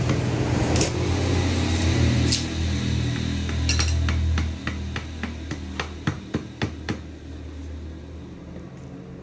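Machete blade chopping and tapping bamboo: sharp, separate knocks, about two to three a second in the second half. A loud, steady low hum runs under the first half and stops about four and a half seconds in.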